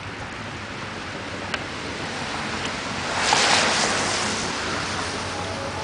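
Steady rain falling on wet pavement and puddles, with a louder hiss that swells up about three seconds in and slowly dies away.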